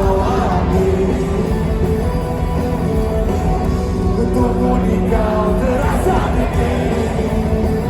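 Live pop-rock band playing a song with a lead vocal, loud and continuous.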